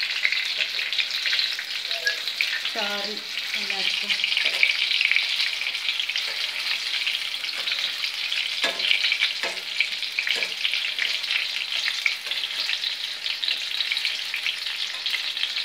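Leftover-chapati snack pieces deep-frying in hot oil in a steel pan: a steady crackling sizzle.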